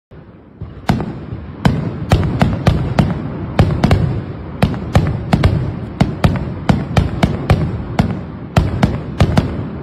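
Fireworks exploding: a dense, irregular run of sharp bangs, two or three a second, over a continuous low rumble. The first loud bang comes about a second in.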